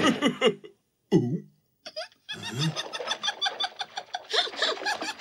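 Cartoon voices laughing: a short falling vocal cry near the start and a moment of silence, then quick, repeated laughter from a little after two seconds in.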